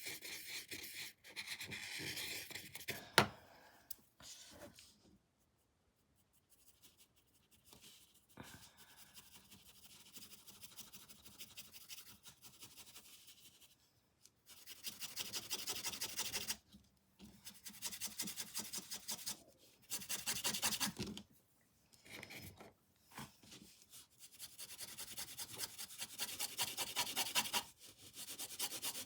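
Paintbrush scrubbing paint onto canvas in spells of quick back-and-forth strokes, a dry rubbing scratch, with pauses between. A single sharp tap about three seconds in.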